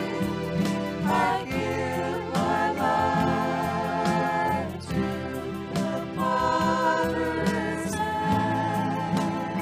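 Worship song sung by several voices, holding long wavering notes over steady instrumental accompaniment.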